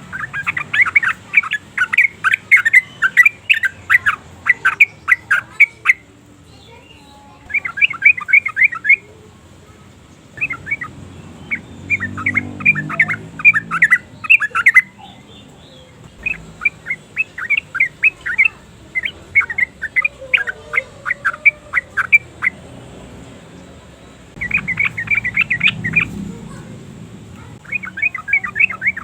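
Yellow-vented bulbul calling: runs of rapid, bright chattering notes in bursts of one to several seconds, separated by short pauses.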